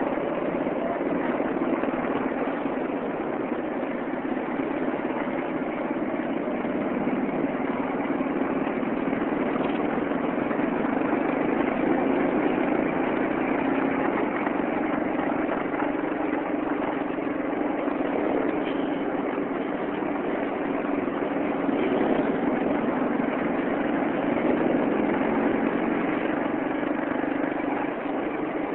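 A vehicle engine running steadily, heard from on board as it moves along a street, over a constant haze of road and traffic noise.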